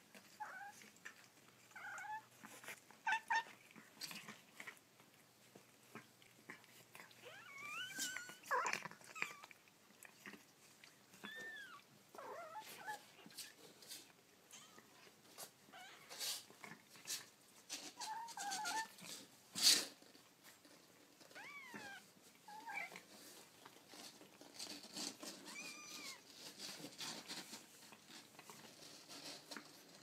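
Young kittens giving short, high, thin mews now and then as they play, with rustling and scratching between the calls and a few sharp clicks, the loudest about twenty seconds in.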